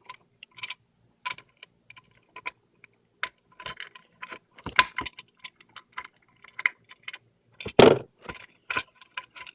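Allen key clicking and rattling against the metal screws and hub adapter as the screws are driven into the steering hub: irregular small metallic clicks, with one louder knock near the end.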